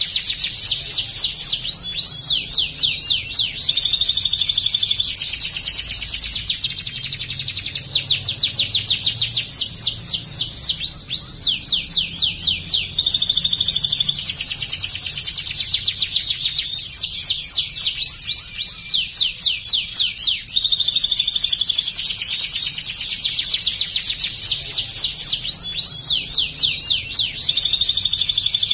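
Domestic canary singing almost without pause: long runs of fast, repeated down-sweeping notes and trills, with a few held notes and short breaks between phrases. It includes mimicked ciblek (bar-winged prinia) song.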